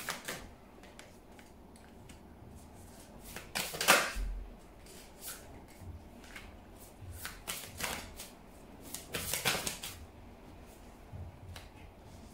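A deck of oracle cards being shuffled and drawn by hand, with three short bursts of shuffling, the loudest about four seconds in, and small clicks and taps as cards are handled and laid down.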